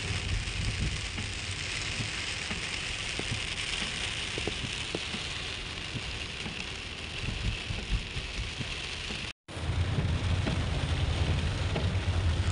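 Heavy rain striking a moving car's windscreen and roof: a steady hiss with many small drop ticks over the low rumble of the car on the wet road. There is a brief gap about nine seconds in, after which the low rumble is louder.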